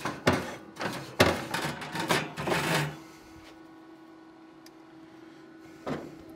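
Grill brush scrubbing the grates of a Traeger Ironwood pellet grill in several quick scraping strokes, then the grill's steady hum as it starts up, with a knock near the end.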